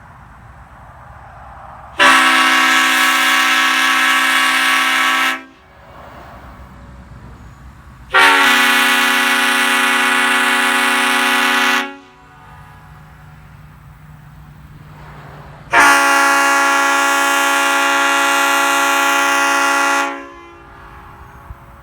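Leslie five-chime air train horns, sounded in three long blasts of three to four seconds each. Each blast is a chord of several steady tones that starts sharply and cuts off quickly.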